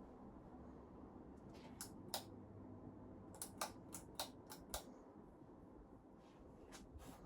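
Old ceiling fan running with a faint, steady low hum. A series of irregular sharp clicks comes in two clusters, one in the middle and two more near the end.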